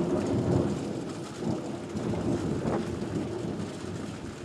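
Thunder rumbling, loudest at the start and slowly dying away, over the steady hiss of rain.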